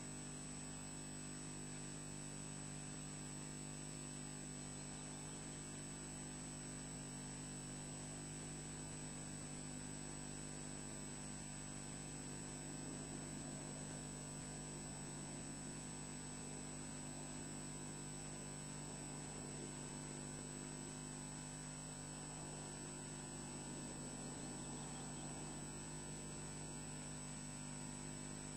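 Steady electrical hum made of several fixed tones, from the audio feed of a nest webcam, over a faint even hiss.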